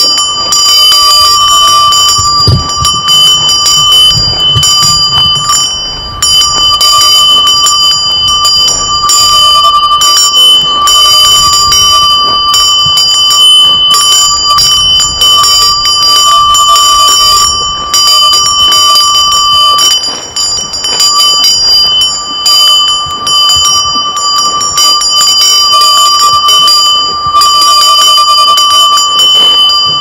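Loud, almost unbroken ringing of a cowbell hung on a grazing cow's neck strap, jangling as the cow feeds, with a few brief breaks.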